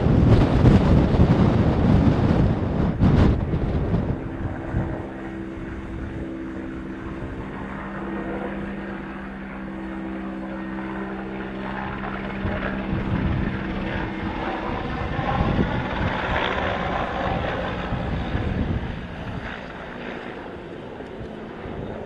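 Wind buffeting the microphone for the first few seconds, then the steady drone of a distant firefighting helicopter's engine and rotor working over the fire, fading a little near the end.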